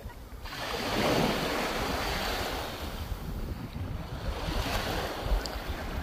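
Small waves washing in over shallow water and sand, swelling about a second in, with wind buffeting the microphone.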